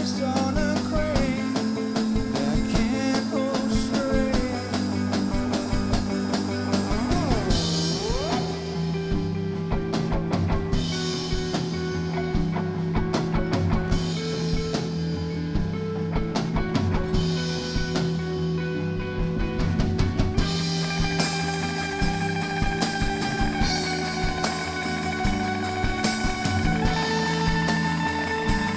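Live rock band playing an instrumental passage on electric and acoustic guitars. Around eight seconds in, the sound thins to a sparer section, and the full, bright band sound comes back about twenty seconds in.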